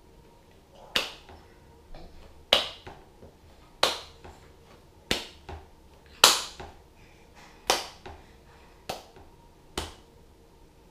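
An adult clapping his hands: single sharp claps at a slow, even pace, about one every second and a quarter, eight in all.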